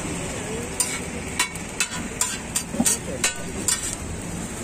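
A metal spatula and knife clacking sharply against a large flat griddle while chowmein noodles are chopped and tossed on it, about eight strikes at uneven intervals, over a steady sizzle.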